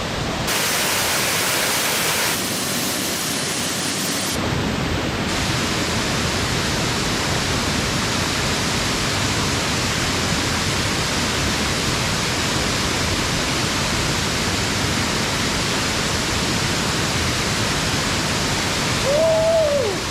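Steady rushing of a waterfall in spate, running heavier than normal after recent rain. Its tone changes abruptly a few times in the first five seconds.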